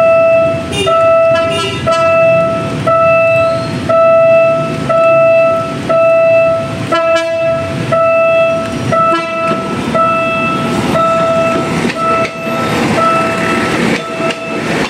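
An electronic railway warning alarm beeps one steady tone about once a second, while train wheels rumble and clack past, growing louder near the end.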